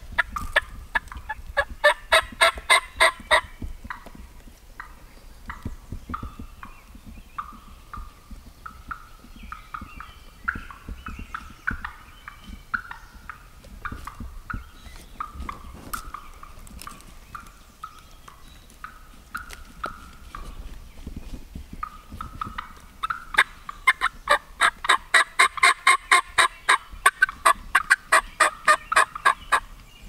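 Turkey calling: a fast run of loud notes in the first few seconds, a slower series of softer notes through the middle, then a long fast run of loud notes over the last several seconds.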